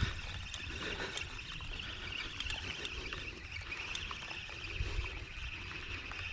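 Outdoor ambience: a steady, continuous chatter of distant birds over a low, uneven rumble.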